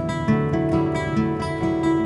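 Acoustic guitar playing a slow, meditative instrumental: plucked notes start one after another and ring on over held bass notes.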